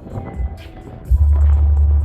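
Background music, with a strong deep bass coming in sharply about a second in and holding steady.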